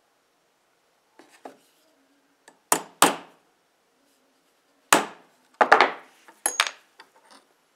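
Hammer striking a punch held on the steel jaw tip of a pair of pliers on a steel block: a few light taps, then about seven sharp blows in loose pairs, each with a short ring.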